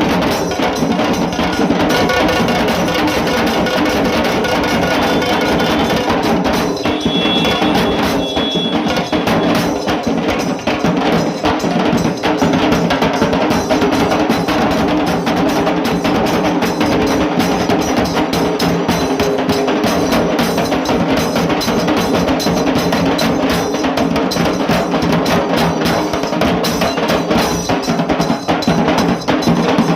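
Dhol tasa drum ensemble playing: dhol barrel drums and sharp-sounding tasa drums beating a dense, fast rhythm.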